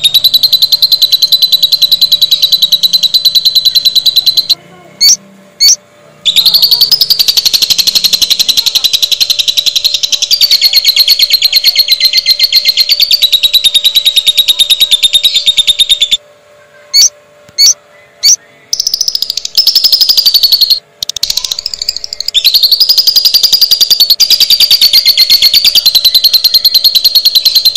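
Lovebird giving its long 'ngekek' trill: a loud, very rapid chattering trill held for many seconds at a time, broken by a few short pauses with single quick chirps.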